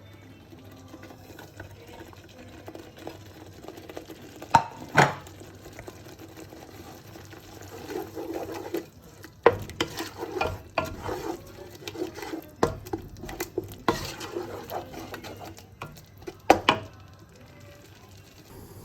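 Curry being stirred in a pot with a metal utensil: steady scraping and sloshing, broken by sharp clinks of metal on the pot, two close together about five seconds in, several more through the middle, and a pair near the end.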